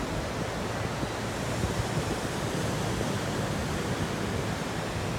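Ocean surf breaking and washing up a sandy beach as a steady rush, with some wind rumbling on the microphone.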